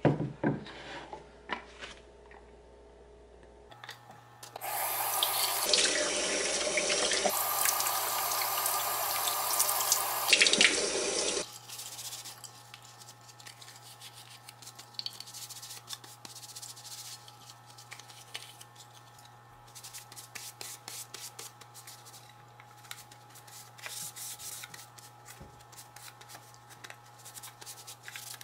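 A kitchen tap runs into a ceramic sink for about seven seconds as the blender lid parts are rinsed, then shuts off. A sharp knock comes at the very start. After the water stops there are light clicks and rubbing as the wet plastic lid parts are handled and dried with a cloth.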